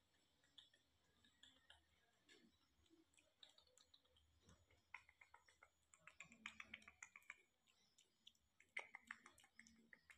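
Near silence with faint soft clicks and rustles from two baby macaques shifting about on a cushion in disposable diapers. The clicks come thickest around the middle and again briefly near the end.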